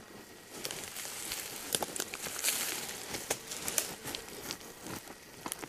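A hand rummaging through dry leaf litter, twigs and small stones on the ground: rustling and crackling with many scattered sharp clicks.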